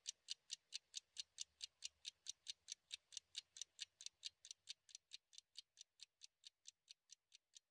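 Steady, even clock-like ticking, about five ticks a second, fading toward the end.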